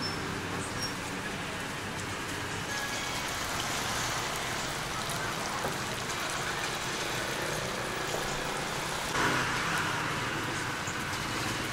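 Night market ambience: a steady hiss with faint voices underneath, swelling briefly about nine seconds in.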